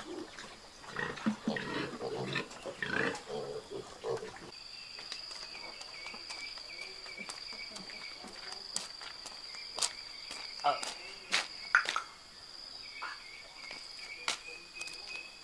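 A group of piglets grunting and squealing for the first four seconds or so. After that a steady high insect buzz takes over, with a few sharp clicks scattered through it.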